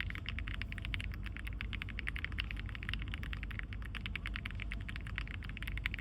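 Fast, continuous typing on an AULA F87 mechanical keyboard: a quick, even stream of key clicks, about eight to ten a second, over a low steady rumble.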